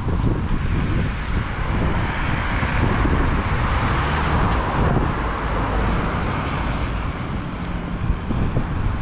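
City street ambience: wind buffeting the microphone with a steady low rumble, over road traffic noise that swells and fades as a vehicle goes by between about two and five seconds in.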